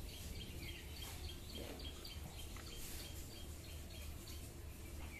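Small birds chirping faintly, a quick run of short repeated notes, over a steady low rumble.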